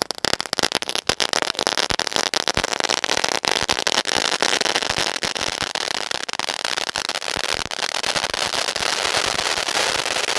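Crackling anar (flower-pot fountain firework) spouting sparks: a loud hissing rush full of rapid crackling pops, the hiss thickening and steadying from about four seconds in.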